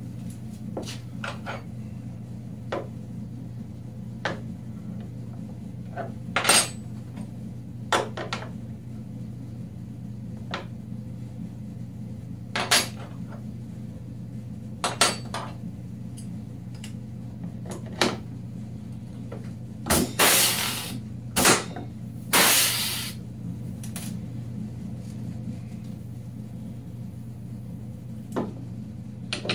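Pneumatic rivet gun setting pop rivets into a snowmobile rack: a series of sharp snaps, with two longer hisses of air about two-thirds of the way in.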